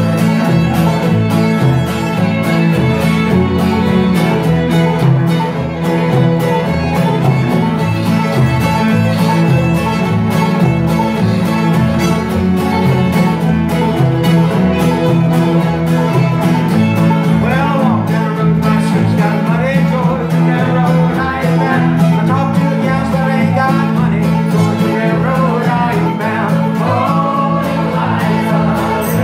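Old-time string band playing live: fiddle, acoustic guitar, mandolin, banjo and upright bass together in a bluegrass-style tune.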